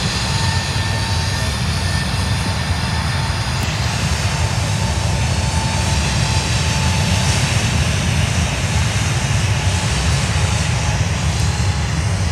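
Airbus A380's four jet engines running loud, a deep steady rumble with a thin whine that fades out by about halfway.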